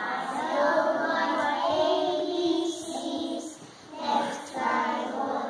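A group of young children singing together, with a short break between phrases a little under four seconds in.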